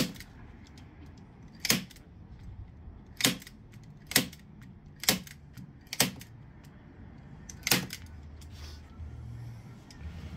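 Hand-held manual staple gun firing staples through vinyl into a wooden subwoofer box: seven sharp snaps, irregularly spaced a second or two apart.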